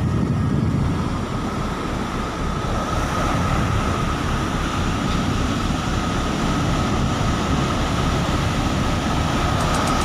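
Ocean surf breaking and washing up a sandy beach: a loud, steady rushing noise with a strong low rumble.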